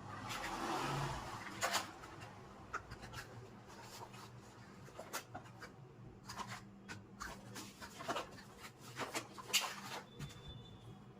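Packaging being handled during unboxing: a rustle of plastic or cardboard in the first second or so, then a long run of irregular sharp clicks and taps.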